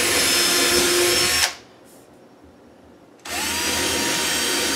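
Cordless drill boring fastener-size holes through a wooden guide jig into a cabinet door, its motor whining steadily. The first hole finishes and the drill stops about a second and a half in. After a short pause it spins up again on the second hole.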